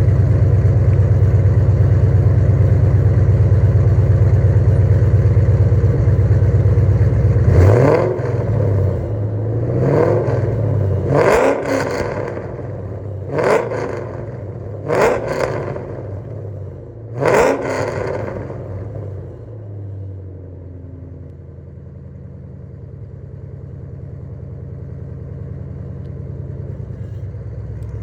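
Ford Crown Victoria's V8 engine running with a steady low rumble, then revved in about five quick blips, each rising and falling in pitch, before settling back to a quieter idle. Really loud.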